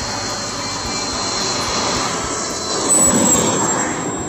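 Small electric radio-controlled model jet (SU mini) flying low as it comes in to land, its motor whining thinly over a rushing noise. The whine fades out past the middle, and the rushing grows louder about three seconds in.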